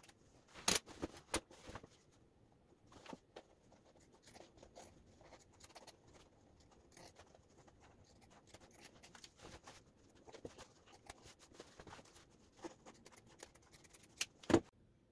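Scissors cutting across a corduroy jacket: a steady run of faint snips and crunches of the blades through the fabric, with a few sharper clicks about a second in and near the end.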